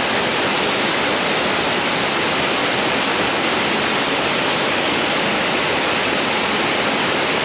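Creek water rushing in a steady, loud, even hiss.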